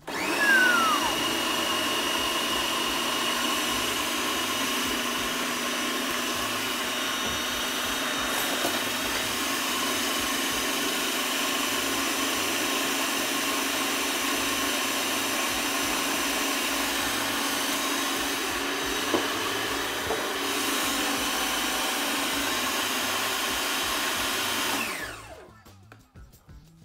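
Electric food processor blending chickpeas into hummus: the motor runs at a steady pitch with a constant whine, then is switched off about 25 seconds in and winds down.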